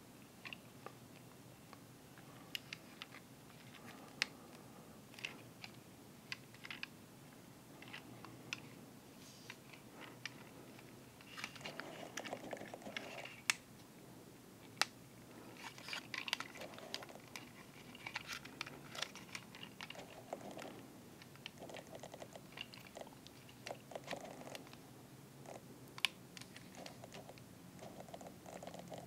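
Orange plastic Masterpiece MP-54 Reboost Transformers figure being transformed by hand: its parts click, snap and rub as they are twisted and folded, in scattered sharp clicks with short bursts of soft rubbing.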